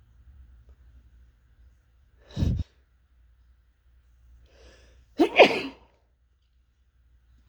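Two strong sneezes about three seconds apart, each short and sudden, the second one louder.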